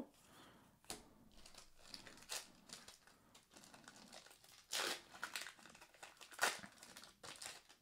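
Faint crinkling and tearing of a foil trading-card booster pack being handled and pulled open by its tear tab, with two louder crackles in the second half.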